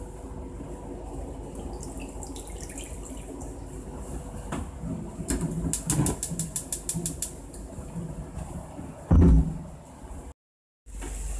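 Kitchen sounds around a frying pan of frozen sausages on the stove: a low steady hum, a quick run of sharp ticks lasting about two seconds midway, and a heavy low thump near the end, after which the sound drops out for half a second.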